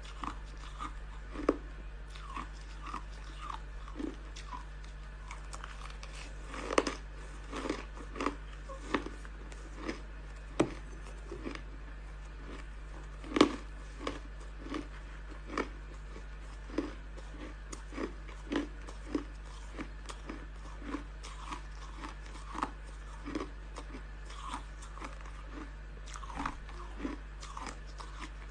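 Crushed ice being bitten and chewed close to the microphone: a steady run of sharp crunches, about one to two a second, the loudest about halfway through. A low steady hum lies underneath.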